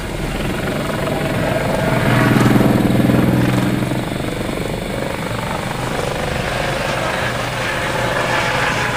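Eurocopter EC120 Colibri helicopter's turboshaft engine and rotor running in flight, heard from inside the cabin: a steady hum that swells for a couple of seconds as it manoeuvres, then settles.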